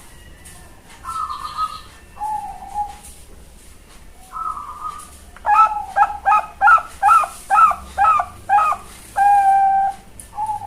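Zebra dove (perkutut) cooing. Three separate notes open the song, followed by a quick run of about eight short coos, and it ends on one longer held note.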